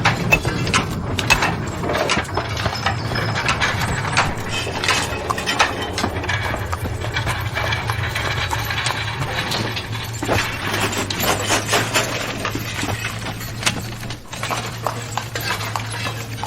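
Working coal mine sound effects: a steady low machinery hum under frequent wooden and metal knocks, clanks and ratcheting, with horse hooves clip-clopping.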